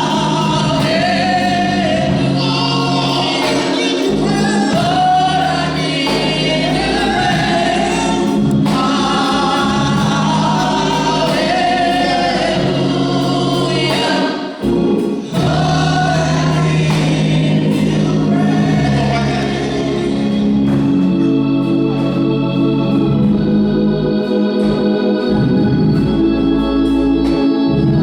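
Gospel choir singing with organ accompaniment. About twenty seconds in the voices stop and the organ carries on alone with held chords.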